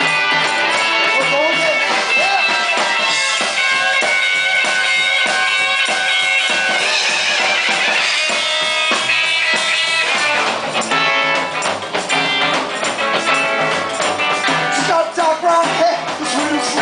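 Live rock band playing, with guitar and drum kit keeping a steady beat and singing in places.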